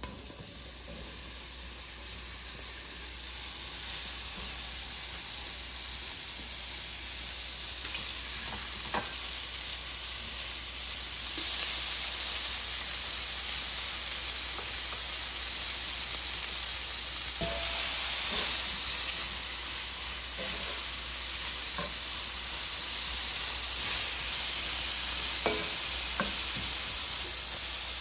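Sliced cremini mushrooms sizzling in hot butter and oil in a cast-iron skillet. The sizzle grows louder over the first dozen seconds, with a few knocks from stirring in the pan.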